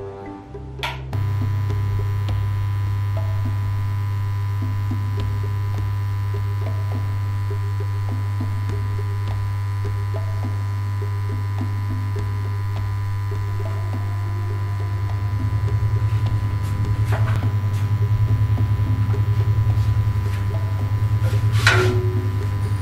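Loud, steady low hum that starts about a second in and takes on a slight pulsing throb about two-thirds of the way through, with a couple of faint clicks near the end.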